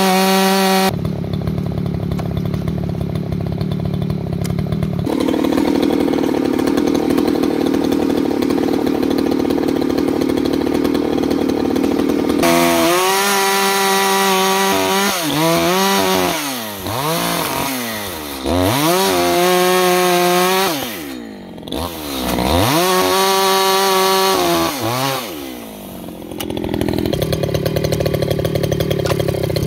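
Echo CS-620P two-stroke chainsaw cutting wood under load, its pitch held down for about twelve seconds. It is then revved up and down several times, dropping back toward idle three times, and is under load again near the end.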